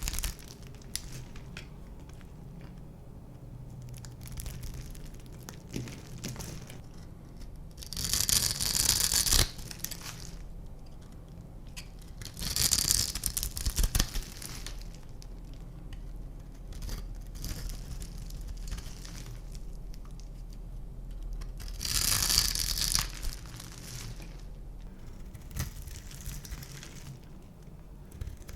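Dry soap being crushed and crumbled, giving crisp crunching and crackling. It comes in three louder bursts, roughly 8, 13 and 22 seconds in, with quieter crackles and small snaps between.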